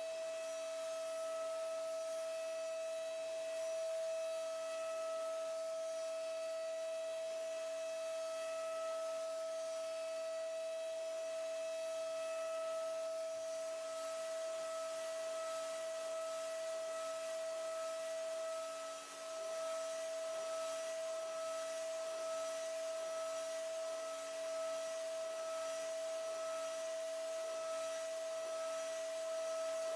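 DATRON M8Cube high-speed machining center's spindle whining at a steady high pitch while milling, over a faint hiss. The level dips briefly a little past halfway.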